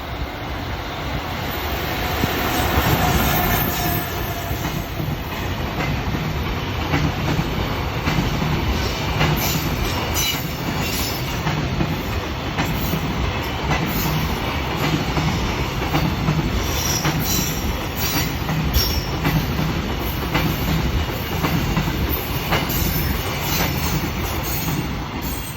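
JR Freight freight train, an EF65 electric locomotive hauling container wagons, passing close by: a steady rumble with a rhythmic clickety-clack of wagon wheels over the rail joints, loudest about three seconds in.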